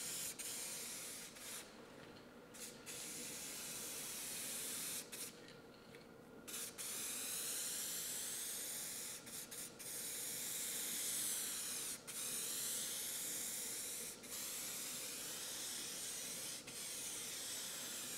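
Aerosol spray-paint can hissing as the nozzle is held down to coat a steel frame, in long passes with a few short breaks where the nozzle is let go.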